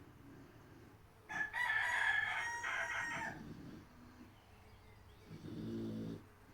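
A rooster crows once, about a second in, for roughly two seconds. Near the end a pig snores once, a low snore lasting about a second.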